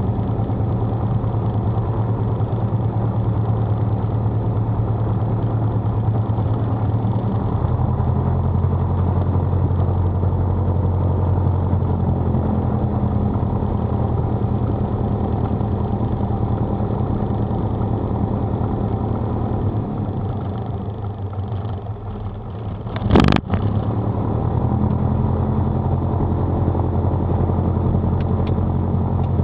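Single-engine piston airplane engine and propeller running at low taxi power, a steady drone heard from inside the cockpit. The level dips briefly a little after twenty seconds in, followed by one sharp click.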